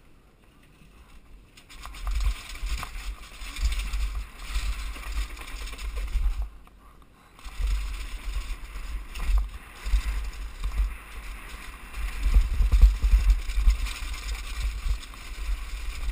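Downhill mountain bike rattling and knocking as it rides down concrete steps at speed, with heavy wind noise buffeting a helmet-mounted camera's microphone. It starts quieter, picks up about two seconds in, and drops briefly around seven seconds.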